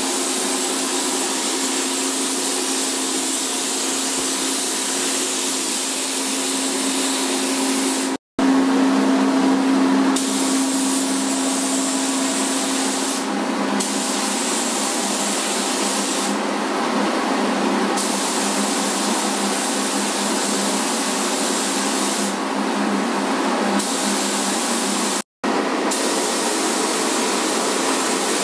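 Gravity-feed paint spray gun hissing as it sprays paint, a steady loud hiss that thins out briefly a few times, with a steady low hum beneath. The sound cuts out for an instant twice.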